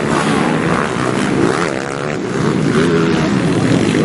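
Several pit bike engines revving, overlapping, their pitch rising and falling as the riders open and close the throttle over the jumps.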